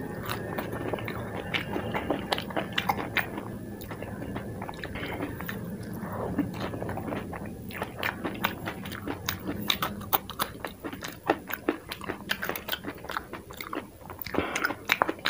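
Close-miked eating of dahi puri: crisp puri shells filled with yogurt being bitten and chewed, with many sharp crunches and crackles.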